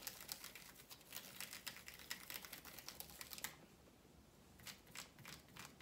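Faint wet scratching and crackling of an eyeshadow brush scrubbed back and forth over the textured ridges of a silicone brush-cleaning mat in soapy foam. It goes quieter about three and a half seconds in, with a few light ticks near the end.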